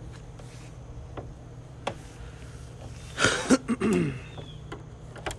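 A car's rear engine lid being handled and opened: a few light clicks, then a short bout of handling noise with a brief falling vocal sound about three seconds in, and a sharp click near the end, over a steady low background hum.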